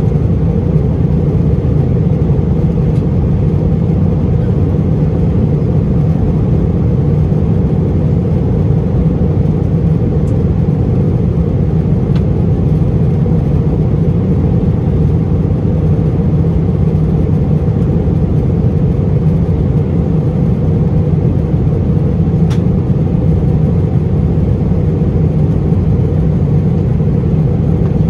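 Steady low rumble of jet engines heard inside an Airbus A321 airliner's passenger cabin.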